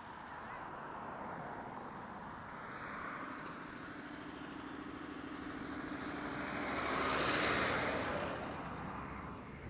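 A road vehicle passing by: tyre and engine noise that swells to its loudest about seven and a half seconds in, then fades away.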